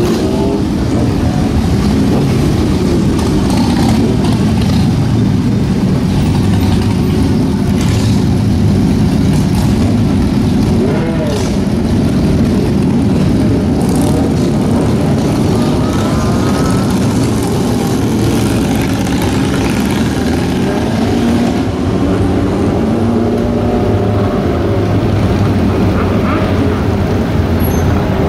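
Many motorcycles riding slowly past on a city street in a group, with cars among them: a steady, loud mix of engines running, with repeated revving.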